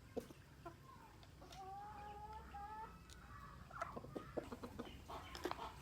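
Free-range chickens clucking: one drawn-out call about a second and a half in, then a run of short, sharp clucks near the end.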